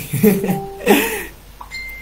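A man's voice, talking and laughing with a rising and falling pitch, fades out after about a second. Near the end a single steady high-pitched electronic beep sounds.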